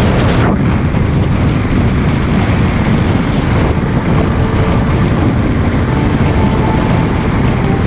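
Loud, steady rumbling noise of a vehicle in motion, with faint steady tones coming in about halfway through.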